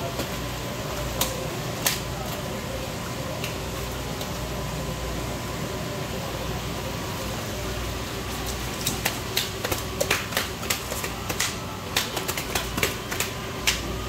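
A live wild sea bass thrashing and slapping against a wet floor: two sharp smacks in the first couple of seconds, then a quick irregular flurry of slaps over the last five seconds. A steady hum runs underneath.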